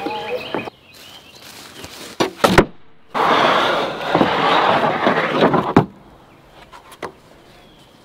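Wooden boards knocking together twice, then about two and a half seconds of rough scraping as a rough-sawn board slides across the stack of lumber.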